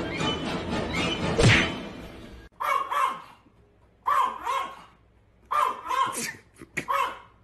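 A small dog barking in short pairs of barks, about every second and a half, starting about two and a half seconds in. Before that, music with a sharp knock about a second and a half in.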